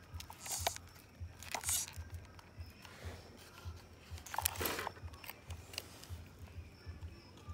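Handling noise while an RC car's chassis is turned over and looked over close to the microphone: light clicks and rustles, with three brief hissy scrapes, the loudest about four and a half seconds in.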